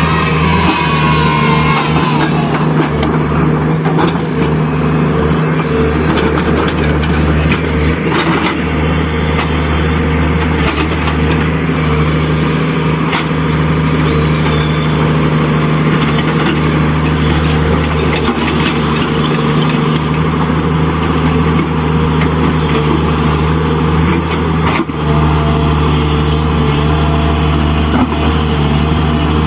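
Radio-controlled model construction machine running: a steady, unchanging motor and gear drone, with a brief dip near the end.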